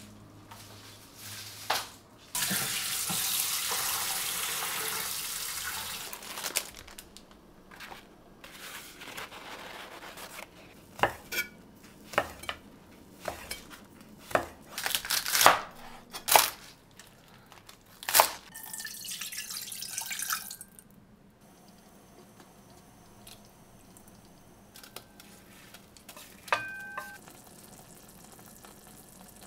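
Kitchen tap running into a sink for a few seconds, then a run of sharp clinks and knocks of things being handled in the sink. A second short burst of running water comes about two-thirds of the way in, and it ends with a few faint clinks.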